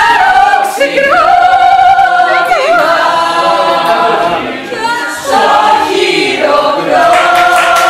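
A group of women singing together without instruments, one voice rising above the others with wavering, ornamented notes.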